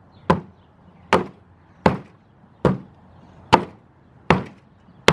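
Repeated hard blows, about seven, one every three-quarters of a second, struck on a glued wood test sample to knock off the wood bonded with construction adhesive. Each is a sharp crack with a short ring.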